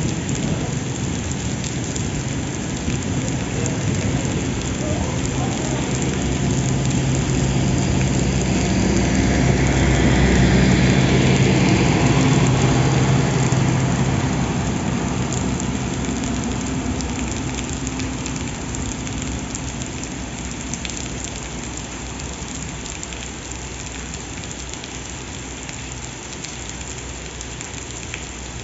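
Heavy rain pouring down as a passenger train runs past. A low, steady drone from the train swells to its loudest about ten to thirteen seconds in, then fades as the train moves away, leaving the rain.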